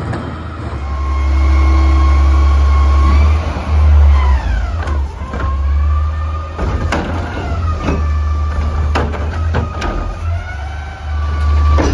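Front-loader garbage truck's engine revving with a hydraulic whine that falls and rises in pitch as its Curotto-Can arm lifts a trash cart, tips it over the can and lowers it. Several sharp bangs of the cart and arm in the second half.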